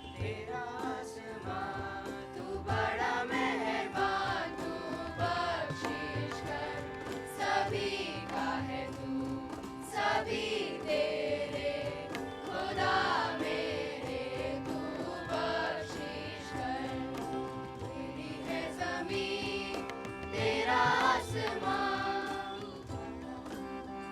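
A choir singing a melodic song, with instrumental accompaniment and a steady percussion beat.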